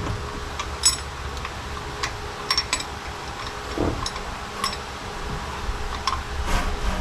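Scattered light metallic clicks and taps from bolts and hand tools being handled against a Pontiac V8's power steering pump and bracket, over a steady fan-like hum.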